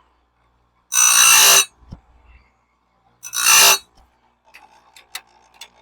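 Electric chainsaw-chain sharpener grinding a steel bandsaw-mill blade tooth twice, each a short, high-pitched metallic grind of about half a second, followed by a few light clicks.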